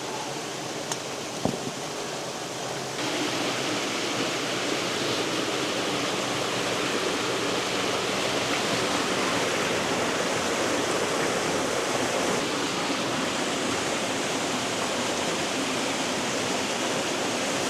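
Water rushing steadily over a small cascade between icy rocks, getting louder about three seconds in and then holding steady. A small click and a short knock come about a second and a half in.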